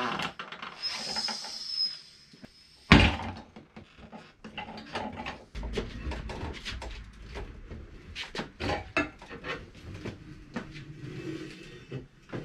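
Manual bead-breaker tire changer being worked on a riding-mower tire: a brief high hiss about a second in, then one loud bang near three seconds as the bead lets go, followed by a run of irregular metal clanks, knocks and rubber scrapes as the tire is levered around the rim.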